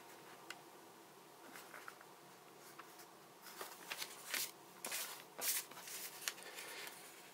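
Faint rustling and crinkling of a paper instruction sheet as it is handled and turned over, with a few louder crackles in the second half.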